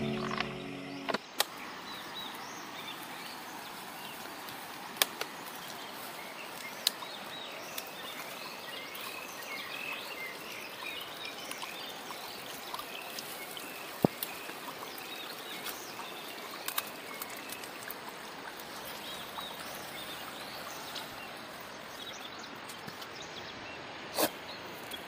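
Riverbank ambience: a steady rush of flowing river water with scattered bird chirps, and a few sharp clicks now and then. Background music stops about a second in.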